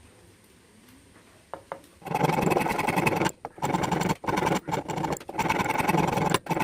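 A tool cutting or abrading wood, starting about two seconds in, in a run of loud buzzing, rasping strokes with brief breaks between them.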